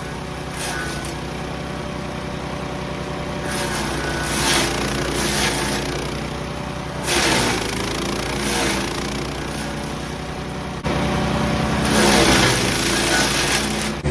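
Gas engine of a MechMaxx 6-inch wood chipper running steadily, with several stretches of loud shredding as bushy yaupon branches are pushed through the chute. Each time, the engine's pitch sags under the load and then recovers.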